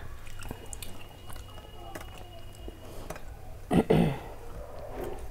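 Eating sounds: soft chewing and small mouth clicks. About four seconds in there is a short louder noise as fingers tear a chira parotha against a steel plate.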